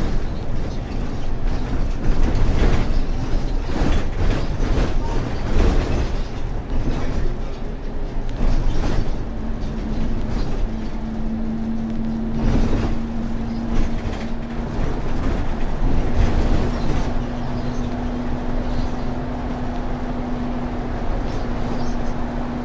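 Cabin sound of a Scania K230UB single-deck bus under way, its five-cylinder diesel running, with road noise and rattling of interior fittings. About ten seconds in, a steady whine joins and holds as the bus cruises on.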